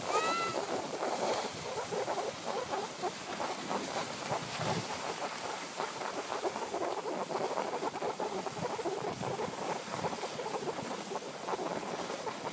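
Skis scraping and hissing steadily over packed snow on a downhill run, with wind buffeting the microphone. About half a second in there is one brief high-pitched squeak.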